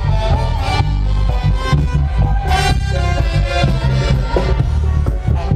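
Live band playing amplified reggae on an arena stage, with a heavy bass line, drums and melodic lines running continuously.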